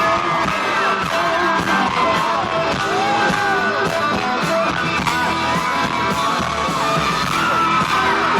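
Live country-rock band playing loud with a steady beat through a stretch without vocals, and the concert crowd yelling over it.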